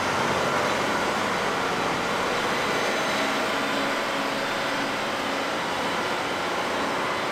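John Deere 9460R four-wheel-drive tractor's diesel engine running steadily as the tractor moves slowly into a parking spot.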